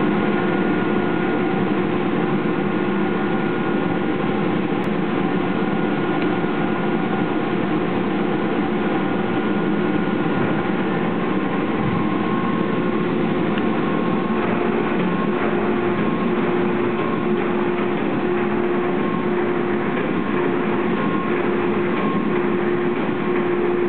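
Steady machine drone of an automatic glass-cutting table and factory machinery: a continuous noise with a few held humming tones.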